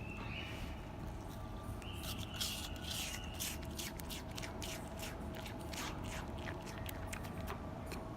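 Red panda biting and chewing apple: a rapid, irregular run of small crisp crunches, with high squeaky sounds near the start and again about two to three seconds in.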